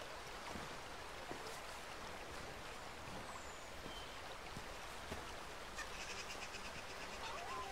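Faint, steady rush of a stream running over rocks.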